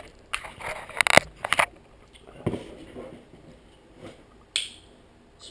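Handling noises as a parcel is opened: a quick run of sharp clicks and taps about a second in, then faint rustling and a short scrape near the end.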